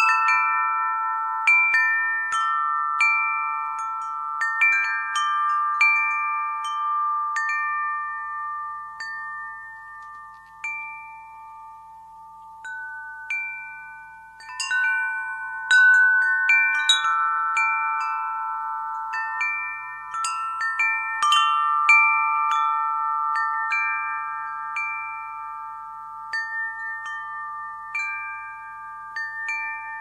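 Wind chime ringing: several tones struck at random and left to ring on, overlapping one another. The strikes come thicker around the middle and thin out near the end.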